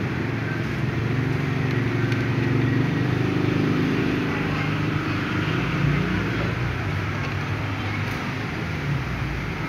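A low, steady mechanical rumble like an engine running, swelling over the first few seconds and easing off after about five.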